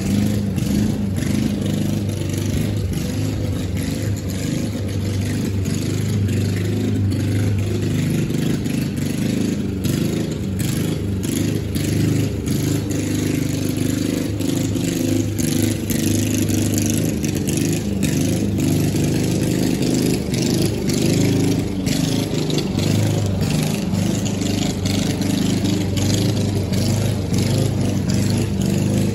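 Small lawn mower engine running steadily as a walk-behind mower cuts grass, its hum rising and falling slightly in pitch, with scattered short clicks.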